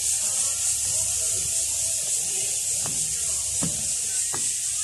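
Steady, high-pitched insect buzzing from the park trees, a cicada chorus, with a few soft knocks in the second half.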